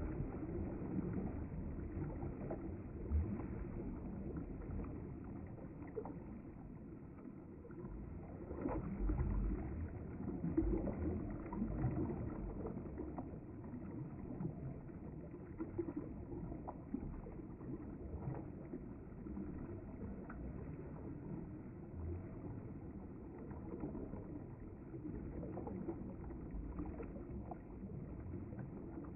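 River water flowing past the bank, a steady low rushing with faint small splashes now and then.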